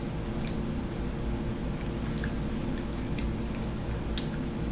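A person chewing food with scattered small wet mouth clicks, over a steady low hum.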